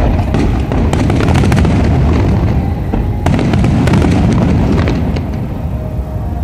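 Aerial firework shells bursting one after another, with booms blending into a continuous low rumble and sharp cracks and crackling scattered throughout.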